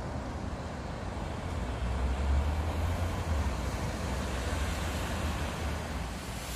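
Street traffic: a steady hiss of road noise, with a vehicle's low rumble swelling about two seconds in and easing off again.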